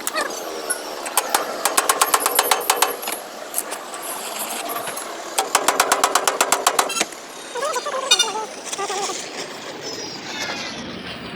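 Rapid, evenly spaced metal-on-metal striking, about nine strikes a second, in two bursts of a second or two each, from work on a truck's damaged sheet-metal body.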